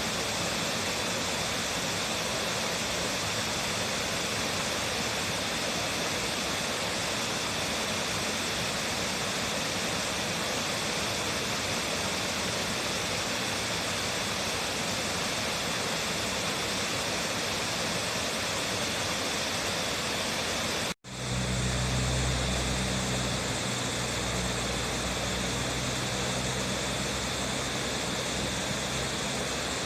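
Waterfall pouring steadily, an even rush of falling water. About two-thirds of the way through the sound cuts out for an instant and comes back with a deeper low rumble.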